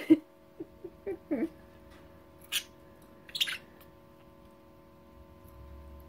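Budgerigars giving a few short, sharp chirps while being held in a hand, over a faint steady hum.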